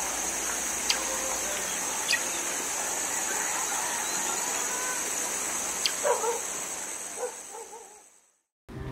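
A few short, soft calls from a calico cat about six seconds in, over a steady high hiss with a few faint clicks; everything fades out near the end.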